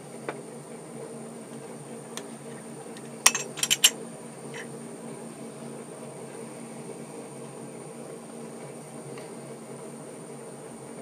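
Metal lathe running with a steady hum while a centre drill in the tailstock drill chuck is fed into a workpiece held in a 5C collet chuck. A quick cluster of sharp clicks comes about three to four seconds in.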